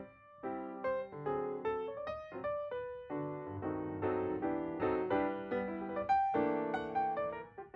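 Background music played on piano: a light run of struck notes and chords.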